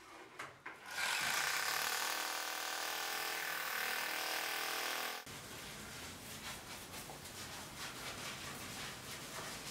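Electric drill boring into a plaster wall, running steadily for about four seconds before it cuts off suddenly. Quieter scratching and clicking follows as the hole is worked by hand.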